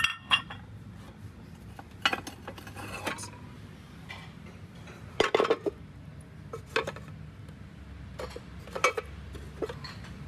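Ceramic dishes and small homeware pieces clinking and knocking together as they are picked up and handled, in irregular clusters of sharp clinks, one ringing briefly about three seconds in.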